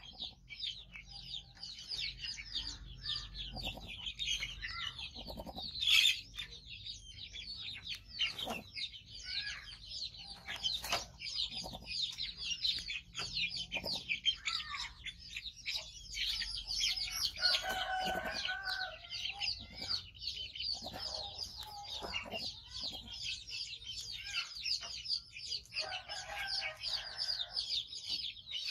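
Many small birds chirping in a dense, unbroken chatter, with chickens calling among them. A longer, lower call stands out about two-thirds of the way through and again near the end.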